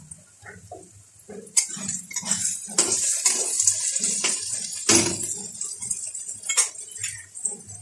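Chopped onions and green chillies sizzling in a black kadai, stirred with a metal spatula that scrapes and clinks against the pan. The scraping starts about a second and a half in and lasts until near the end.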